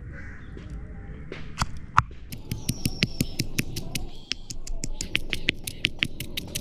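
Sharp crackling pops from cooking, one or two a second at first, then quicker and denser from about two and a half seconds in.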